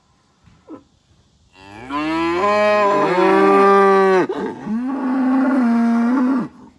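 Cow mooing loudly twice. A long moo rises in and holds from about a second and a half in, then a second, slightly higher moo holds steady and stops shortly before the end.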